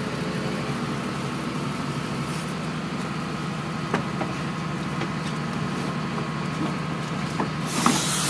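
Boat engine running steadily at low revs, with a few light knocks over it and a loud rushing noise setting in near the end.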